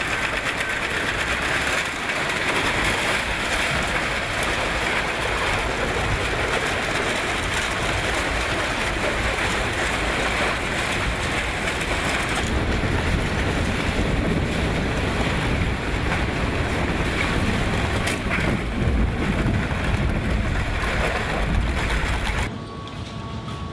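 Industrial waste shredder's toothed rotor grinding car scrap and mixed garbage: a loud, steady grinding din with an occasional sharp crack. Near the end it drops quieter, with a faint steady hum.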